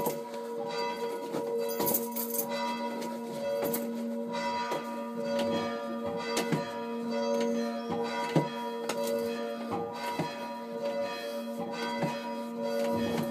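Three hand-rung church bells: the large bell swinging while the two smaller bells are struck by their clappers, worked by ropes. A run of repeated strokes sounds over steady, overlapping ringing.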